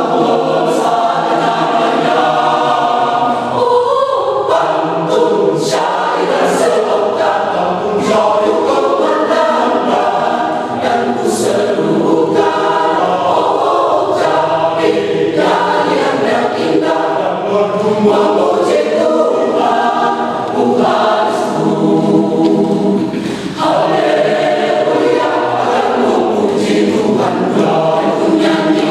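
Church choir singing together, a continuous sung passage with only short breaks for breath.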